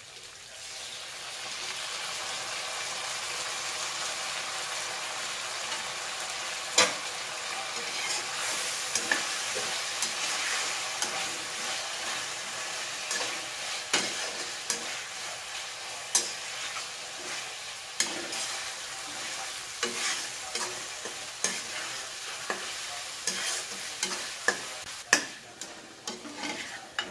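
Chicken hearts in chili sambal sizzling in a wok, the sizzle swelling about a second in as chicken broth is added. A metal spatula stirs the mix, knocking and scraping against the pan, more often near the end.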